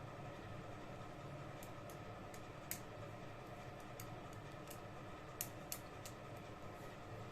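Scattered light clicks and ticks, several seconds apart, over a faint steady hum.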